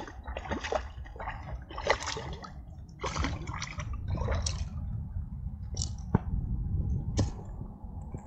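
Water splashing and sloshing in irregular bursts as a hooked smallmouth bass is landed, with a couple of sharp clicks in the second half.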